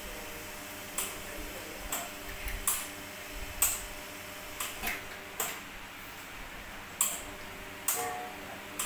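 Hot water running from both group heads of a La Cimbali two-group espresso machine onto the metal drip tray, a steady hiss. Sharp, irregular clicks come through it about once a second.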